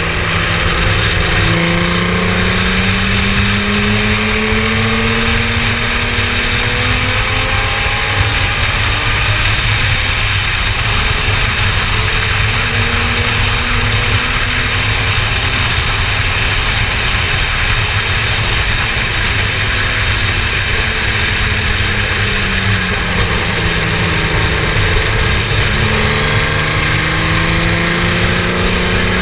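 Formula Yas 3000 single-seater race car engine running at speed, over a loud, steady rush of noise. Its note climbs slowly, drops a little over three-quarters of the way through, then climbs again.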